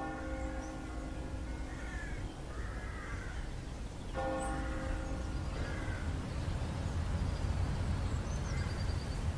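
A bell tolls twice, about four seconds apart, each stroke ringing on and fading. Crows caw in between, over a low steady rumble.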